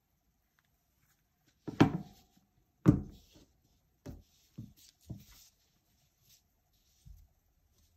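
Hands handling a phone box and its contents: two sharp knocks about a second apart, then several softer taps with light rustling of packaging.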